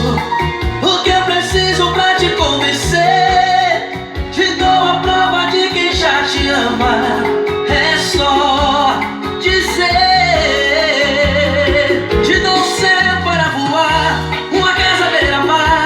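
A Brazilian song with singing and a heavy, pounding bassline, played loud through a car sound system.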